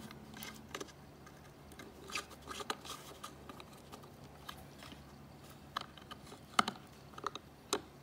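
Small screwdriver working the screw terminals of a C-Bus switch unit's terminal block as thin wires are fastened: scattered light clicks and short scrapes of metal on plastic and metal, a few sharper clicks in the second half.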